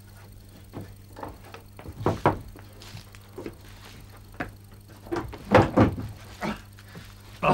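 Scattered knocks and thuds, the loudest a pair about two seconds in and a cluster about five and a half seconds in.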